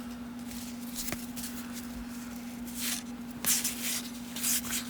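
1990 Topps baseball cards being handled and flipped through by hand: a few short papery swishes in the second half, over a steady low hum.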